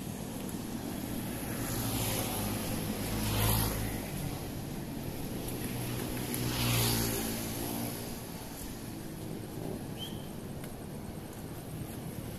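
Road traffic: two vehicles pass by, one about three and a half seconds in and another near seven seconds, over a low steady engine hum.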